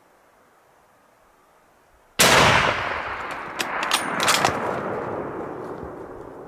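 .338 Ultra Mag hunting rifle fired once at a bull elk, about two seconds in. The sharp report rolls away across the canyon in a long echo, with a few sharp clicks a second or two after the shot.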